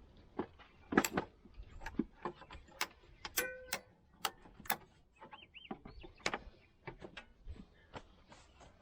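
Scattered light clicks, taps and metal clinks of hand work on a planter row unit, taking off its electric seed-meter drive motor; one clink rings briefly about three and a half seconds in.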